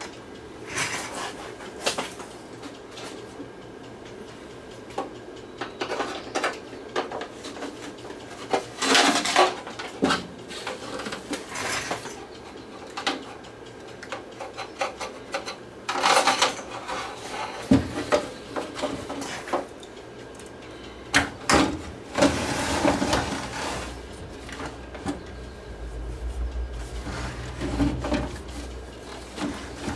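Hands handling a plastic TV rear cabinet and fitting it over an open CRT television chassis: irregular clicks, knocks and rattles of plastic, with a low scraping rumble near the end as the cover goes on.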